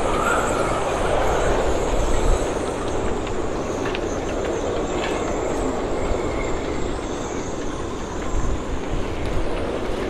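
Storm-force wind blowing hard through a marina, a dense steady rush with gusts buffeting the microphone. Faint high whistles, likely from the boats' rigging, and a few short clanks and rattles sound over it.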